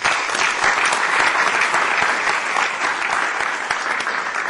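Audience applauding: dense, steady clapping from a roomful of people, easing off slightly near the end.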